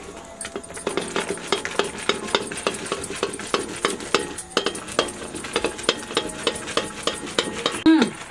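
A ladle stirs a simmering curry of taro leaves in a metal wok, scraping and knocking against the pan in quick repeated strokes over a faint sizzle. Near the end comes one short, loud falling sound.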